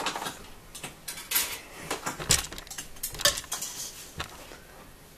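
Irregular clinks and clatters of plastic and metal as parts are fitted onto a stand mixer's stainless-steel bowl, about half a dozen separate knocks.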